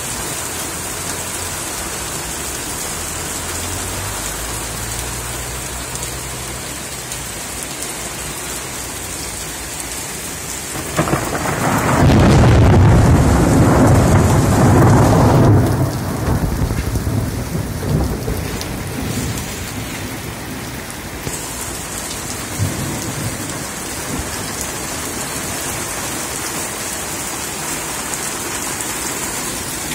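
Heavy thunderstorm rain pouring steadily onto a paved street and parked cars. About eleven seconds in, a loud clap of thunder breaks, rumbles for several seconds, then rolls away.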